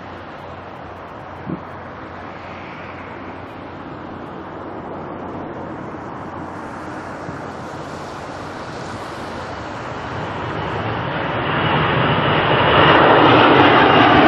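Jet airliner engines approaching: a steady rush of engine noise that grows louder over the last few seconds and is loudest near the end. A single short click comes about one and a half seconds in.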